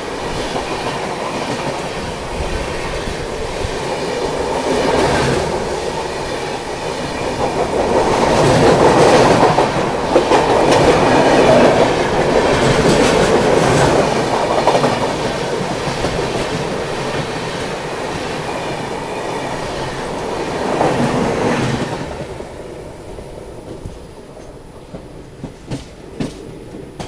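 An express train's coaches passing on the adjacent track at close range, heard from the open door of a moving coach: a loud rushing clatter that swells in the middle. It cuts off about 22 seconds in as the last coach goes by, leaving the quieter run of the train with a few wheel clicks.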